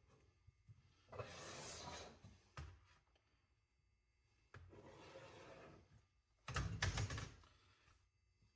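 Faint scratching of a divider point or scribe on sheet metal while marking out layout arcs and lines, in three strokes of about a second each, the last one louder.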